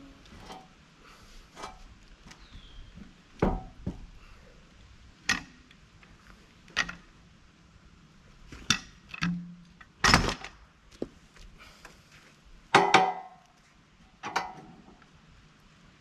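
Scattered knocks and clanks as a log is levered with a cant hook and set on a Woodland Mills portable band sawmill's steel bed, against its log stop and clamp. About seven sharp hits come at uneven intervals, the loudest about ten and thirteen seconds in, with the mill's engine not running.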